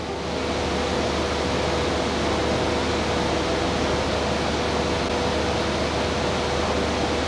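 Steady ventilation hiss with a low hum and a faint steady tone.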